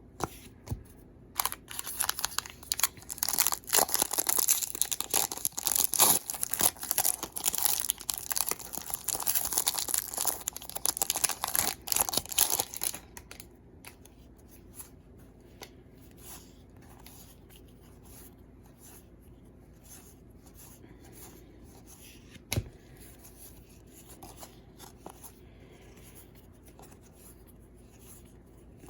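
Wrapper of a 2013 Panini Hometown Heroes baseball card pack being torn open and crinkled, loud and crackly for about the first half. After that there is only faint rustling, with one sharp tap about two-thirds of the way through.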